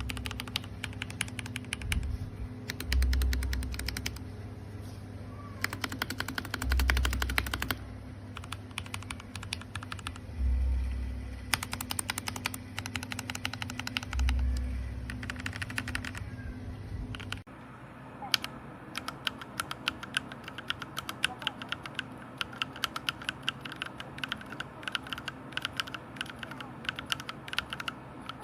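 Typing on a mechanical keyboard fitted with Gateron Milky Yellow Pro linear switches: rapid runs of keystroke clicks in short bursts. About two thirds in this gives way to steady, continuous typing. In the first part, low thuds come about every four seconds beneath the typing.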